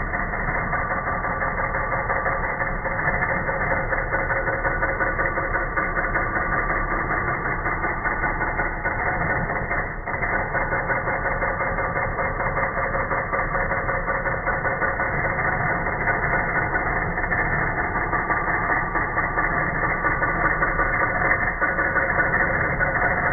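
Radio Shack TRS-80 Daisy Wheel Printer II running, heard slowed down: a continuous low, dense clatter with several steady tones running through it.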